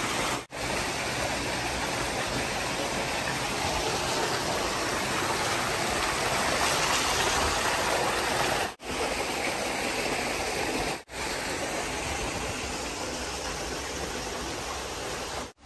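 Water gushing steadily from a stone spout and splashing onto stone paving and a metal drain grate, a constant rushing noise that breaks off for a moment three times.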